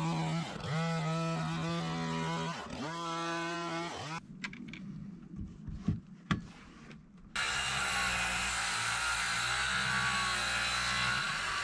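Cordless battery chainsaw cutting through rough-sawn plank wall boards. For the first four seconds its motor whine dips in pitch again and again as the chain bites. A quieter pause with a couple of knocks follows, then steady cutting from about seven seconds in.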